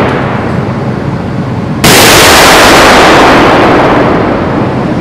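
A Stryker Mobile Gun System's 105 mm cannon firing: a sudden, very loud blast about two seconds in, its rumble dying away slowly over the next two to three seconds. A sharper, shorter bang is heard at the very start.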